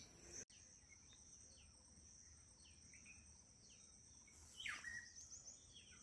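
Faint outdoor ambience: a steady high insect drone, with a bird repeating short falling chirps and a louder chirping call a little past four seconds in.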